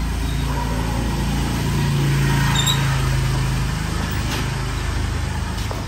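A vehicle engine running at idle close by: a steady low hum that swells around the middle and eases off toward the end.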